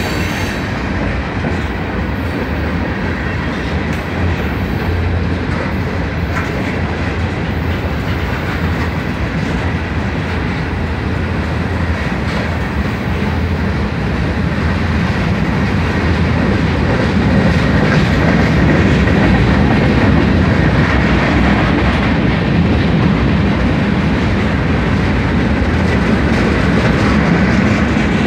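Freight cars of a Norfolk Southern manifest train rolling past at close range: steel wheels running on the rails in a steady noise that grows a little louder in the second half.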